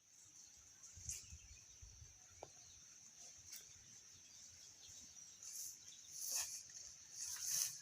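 A few short, noisy coughs or sneezes from an animal with a respiratory illness, the loudest two near the end, over a steady faint high hiss.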